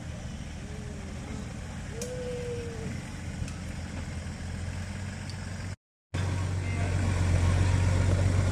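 Engines of modified Nissan Patrol off-road 4x4s running at low revs as they crawl over rutted dirt in a trial. The sound cuts out for a moment about six seconds in, then a second engine's drone comes in, louder.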